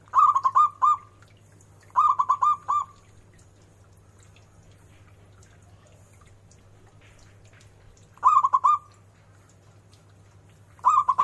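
Zebra dove (perkutut) cooing: four short phrases of quick staccato coos, each four or five notes in a rapid run. The third and fourth come after a pause of about five seconds, and the last is cut off at the end.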